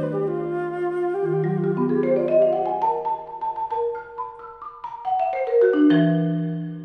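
Marimba playing alone: struck notes climbing in a run, then falling in another. Near the end it settles onto a low, trembling roll that fades away.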